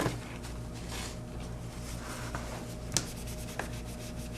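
Fingers and tools working over the back of an iPhone 6 screen assembly as it is cleaned of tape and adhesive: light rubbing and scratching, with a sharp click about three seconds in and a smaller one just after.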